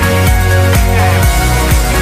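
Electronic dance-pop music with a steady beat of about two beats a second and no singing.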